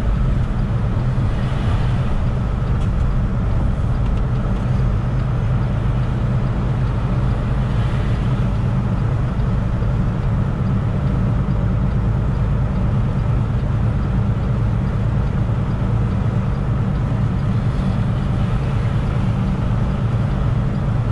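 Semi truck's diesel engine running steadily with road noise, heard from inside the cab while cruising on the highway.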